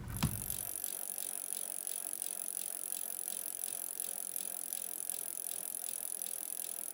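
Steady mechanical rattling made of fast, evenly spaced ticks, with a single click just after the start.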